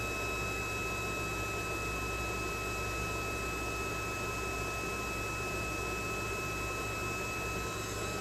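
Handheld magnetic induction bolt heater running, a steady fan-like noise with a faint, steady high-pitched whine, as its coil heats a rusted nut to a red glow.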